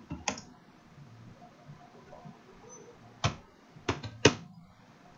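Keystrokes on a computer keyboard: one click just after the start, then after a pause of about three seconds a quick run of three or four sharper clicks, the last the loudest.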